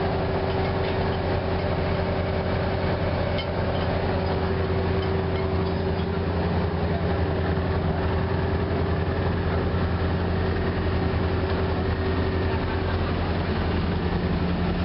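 Onboard engine of a dive boat running steadily: a constant low hum with a held mid-pitched tone over it.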